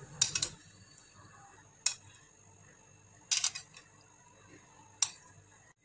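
A metal spoon tapping and scraping against a glass bowl: four short clinks spread a second or more apart, with faint room noise between.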